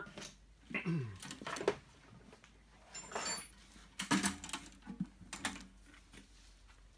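Knocks, clunks and rattles of the Chain Shark grinder's aluminium arm frame being picked up and moved about by hand, in a few separate bursts with a sharp click or two.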